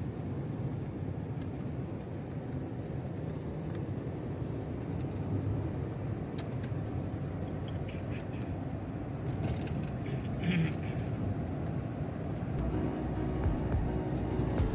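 A car driving along a road: a steady rumble of engine and tyre noise.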